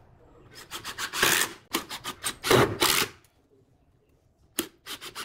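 A cordless drill boring holes into a pine frame: the bit chews through the wood in several rasping bursts over a couple of seconds. A few short sharp knocks follow near the end.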